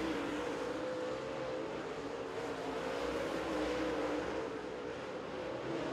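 Super late model dirt race car's V8 engine running at speed around the track, its pitch wavering slightly with the throttle.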